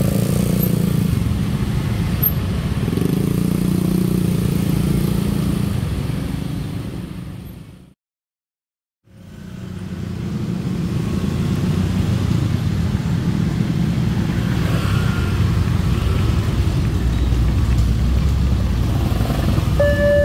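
Motorcycles and cars running over a railway level crossing, a steady traffic din that fades out to silence about two-fifths in and comes back. Near the end the crossing's electronic warning alarm starts with a steady tone, the signal that a train is approaching.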